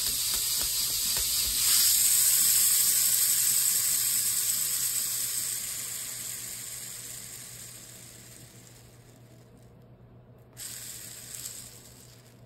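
Hand-spun 3D-printed PLA ball bearings with BB balls, freely spinning with a steady hissing whir. The bearing is given a fresh spin about two seconds in and coasts down slowly over several seconds, a sign of very low friction. It is spun again near the end.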